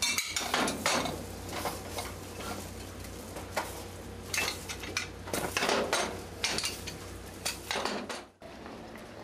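Irregular metal clatter and knocks of long-handled, hinged griddle molds for umegae mochi being opened, flipped and shut by hand, over a steady low hum. The clatter stops suddenly about eight seconds in.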